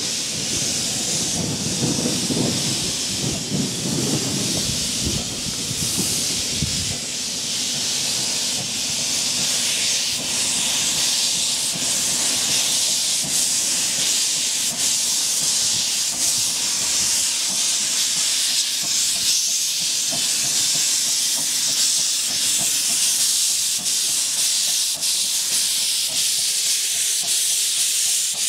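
Steady loud hiss of steam blowing from a 15-inch-gauge miniature steam locomotive's open cylinder drain cocks as it moves slowly off with its train, with some low rumbling in the first few seconds.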